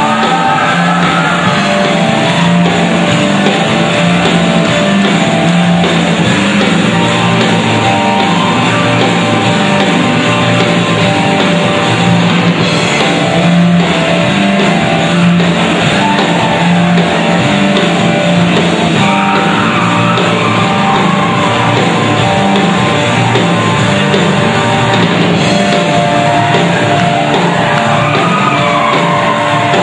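Live band playing with electric guitars and drums, a steady beat running underneath.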